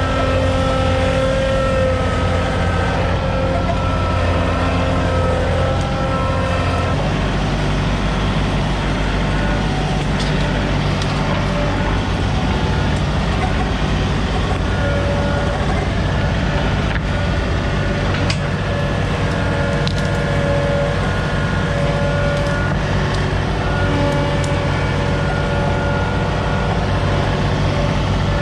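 Compact tractor engine running steadily under way, with a steady whine over it; the engine note shifts about seven seconds in.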